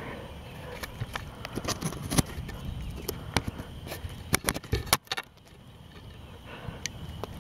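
Camera handling noise: a run of sharp clicks and knocks over about four seconds, which then stops, over a steady low background rumble.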